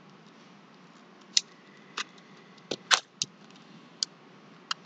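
Tiles of a small 15 sliding puzzle clicking as they are pushed about by hand, about seven sharp, irregularly spaced clicks, the loudest near the middle.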